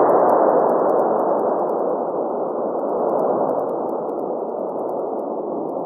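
Long fading tail of a cannon blast: a dense rush of noise that slowly dies away and grows duller.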